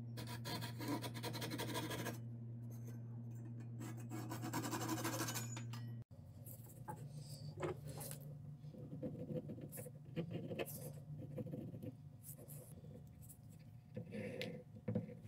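A fine-toothed hand saw rasps through a wooden lure blank held in a lathe, over a steady low hum. About six seconds in, this cuts to a pen scratching on paper, with light ticks and rubs from a ruler.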